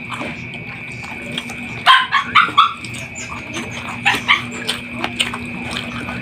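A dog yipping and barking in short bursts, a cluster of several about two seconds in and a few more about four seconds in. Under it runs a steady high-pitched whine and a low hum.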